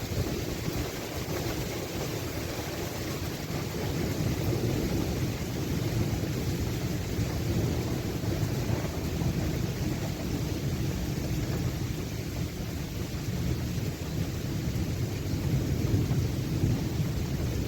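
Continuous low roar and rumble from a severe thunderstorm overhead, swelling and easing slowly, over a light hiss of rain, while the wind at ground level is calm. The uploader takes it for something violent happening high up in the storm.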